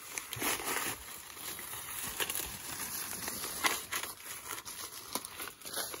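Dry, dead corn leaves and husks rustling and crackling as ears of Hickory King field corn are snapped off the stalks by hand, with irregular sharp snaps among the rustle.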